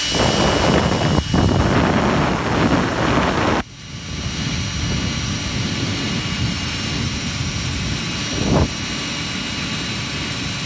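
Makita cordless drill spinning a 3M Roloc bristle disc against the engine block deck, scrubbing off old head-gasket residue. The scrubbing is loud and harsh for the first three and a half seconds, then drops suddenly to a quieter, steady whine.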